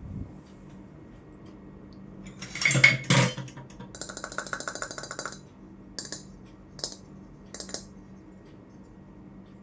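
Miniature toy kitchenware being handled: two loud clattering knocks, then a rapid rattle lasting just over a second, then three short clinks.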